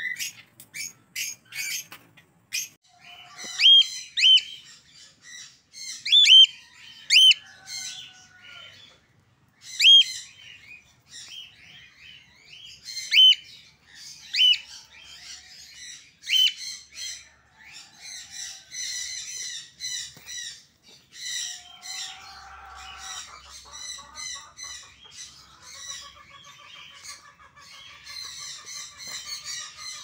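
Caged lovebirds and cockatiels calling: loud, sharp, shrill chirps repeated every second or two, giving way in the second half to a dense, steady chatter.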